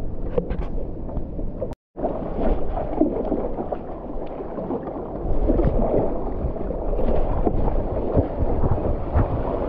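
Ocean water rushing and splashing against a moving stand-up paddleboard, mixed with wind buffeting the microphone. The sound drops out briefly about two seconds in and grows louder about halfway through.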